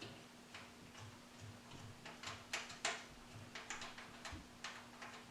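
Hand ratchet clicking in short strokes, about two to three clicks a second, as a cylinder head bolt on a Ford 3.8 L V6 is backed out.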